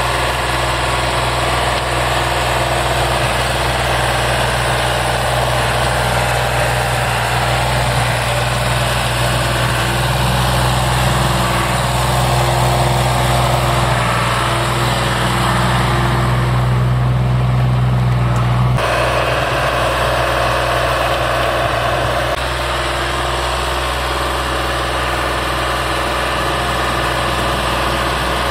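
MT-65 farm tractor's diesel engine running steadily under load as it drives a rear rotary tiller through the soil. The low engine hum changes abruptly about two-thirds of the way through.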